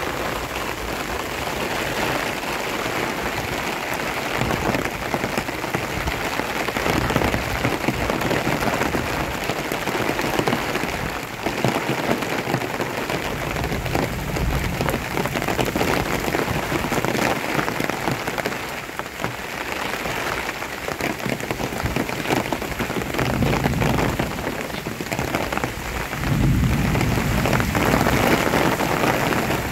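Heavy rain falling steadily, a dense hiss of drops on leaves and ground. About 26 seconds in it grows louder and fuller in the low end.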